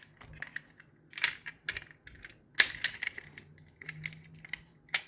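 Diecast toy car being handled, giving a string of irregular small clicks and clacks from its parts.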